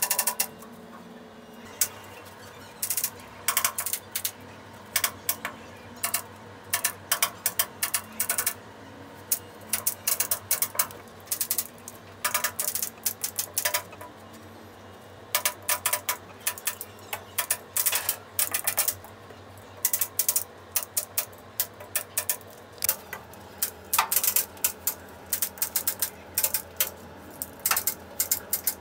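Hand-squeezed staple gun driving staples through pool table cloth into wooden strips, a string of sharp metallic snaps that come singly and in quick clusters.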